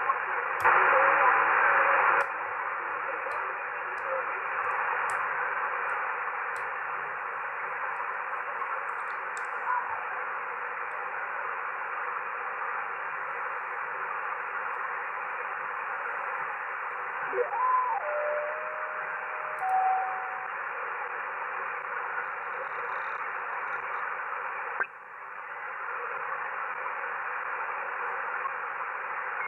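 Shortwave receiver audio from an Icom IC-R71E tuned across the 20 m amateur band: steady band-limited static hiss with no signal, louder for the first couple of seconds. Around the middle, short whistling heterodyne tones (one sliding, then two steady) pass as the dial crosses carriers, and a few seconds before the end the hiss drops suddenly.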